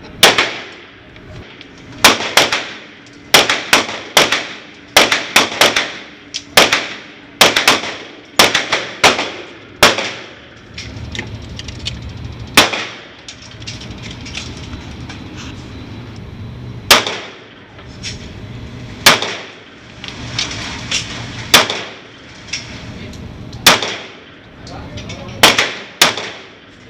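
Gunshots on a shooting range: about two dozen sharp reports at irregular intervals, several in quick pairs, each with a short ringing tail.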